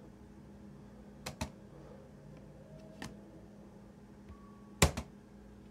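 A few sharp knocks and clicks over a low steady hum: two close together about a second in, one near the middle, and the loudest, a quick double knock, near the end.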